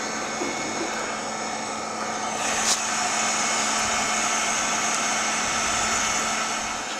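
Battery-powered electric blower running steadily, a constant motor hum with air rushing through the pipe into the burning charcoal of a pit forge to bring it up to forging heat. A single sharp click about two and a half seconds in.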